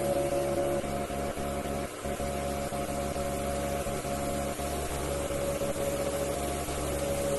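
Steady hum of a small motor with several fixed tones over a low drone, dipping for an instant a few times.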